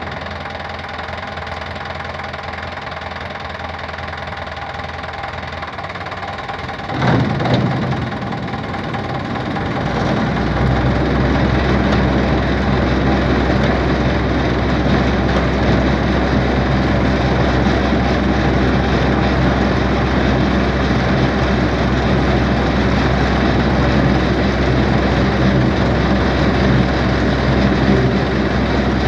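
A Sonalika tractor's diesel engine idles steadily. About seven seconds in, the level jumps sharply. From about ten seconds the engine and the towed straw reaper's machinery run together, louder and steady, with a deep hum.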